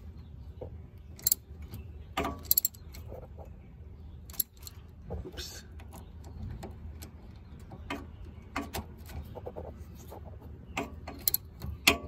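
Ratcheting wrench clicking in short, irregular runs as it is worked back and forth to undo the rusty triple-square bolt on the steering shaft's lower joint, with scattered metallic knocks of the tool.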